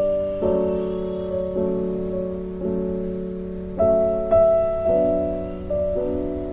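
Slow, gentle piano music: chords struck about once a second, each note fading away.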